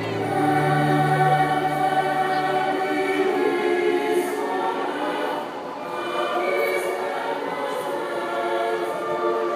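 Choir singing long held chords over music, played through a show's sound system.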